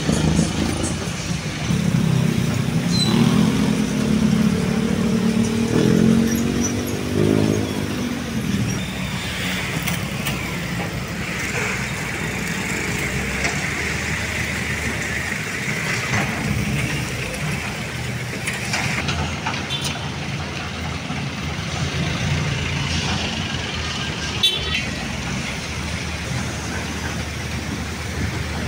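Road traffic: a vehicle engine passes close in the first several seconds, its pitch rising and falling, followed by steady traffic noise.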